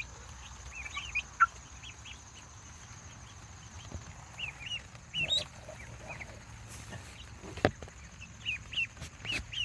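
Young chicks peeping in many short, scattered chirps, with a sharp knock about a second and a half in and another near eight seconds.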